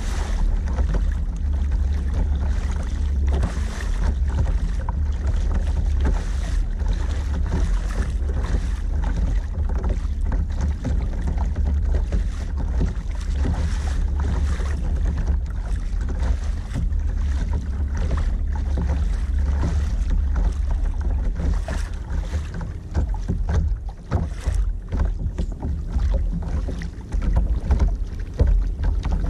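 Water rushing and splashing along the hull of a moving sea kayak, with wind rumbling on the microphone; the rushing grows more uneven near the end as the kayak slows.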